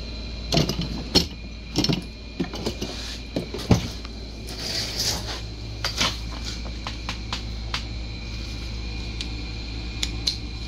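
Metal tools clattering as a tool chest drawer is opened and rummaged through for a ratchet and socket, a string of sharp knocks and clanks in the first few seconds, then lighter clicks. A steady hum sits underneath.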